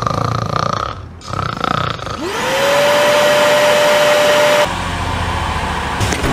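Two snores, then a vacuum cleaner motor spinning up to a steady whine with a rush of air. Near the end it cuts to a low, steady engine rumble.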